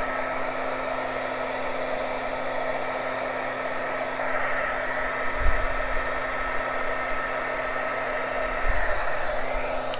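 Electric heat gun running steadily, its fan blowing hot air over a freshly poured layer of acrylic paint mixed with silicone, to bring cells up in the paint. It makes an even hiss with a steady whine, and there are two brief low thuds about five and a half and nine seconds in.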